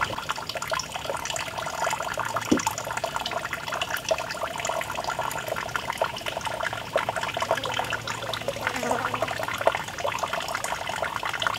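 Thin stream of water trickling and splashing steadily into a shallow pool from a small fountain spout, with one short knock about two and a half seconds in.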